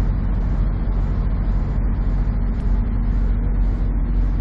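Diesel engine of a Peterbilt semi truck idling close by: a steady low rumble.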